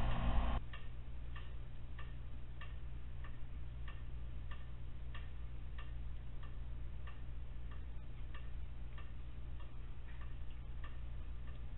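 Even, clock-like ticking, about three ticks every two seconds, over a steady low hum. A louder rushing noise cuts off abruptly about half a second in.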